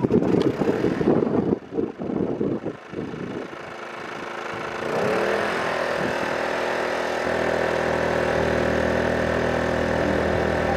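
Small portable inverter generator being pull-started: a few seconds of rough, irregular cranking, then the engine catches with a rising note about five seconds in and settles into a steady run.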